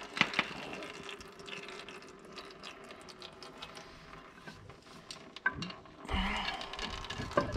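Scattered light clicks and clinks of hand tools working on metal tractor axle parts, with one sharper knock near the start and a louder stretch of rustling, scraping noise about six seconds in.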